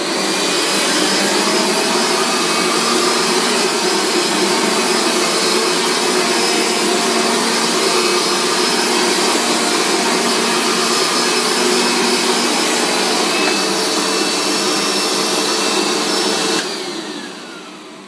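Hoover All Terrain upright carpet cleaner running as it is pushed over a carpet stain: a loud, steady motor drone with a high whine. About a second and a half before the end it is switched off and winds down, its pitch falling as it fades.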